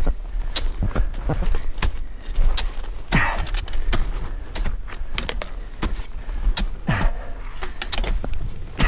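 Climbing gear clinking and knocking as an ice axe and trekking pole are planted in snow, many sharp clicks in uneven succession, with two heavy exhalations, one about three seconds in and one about seven seconds in, over a steady low rumble.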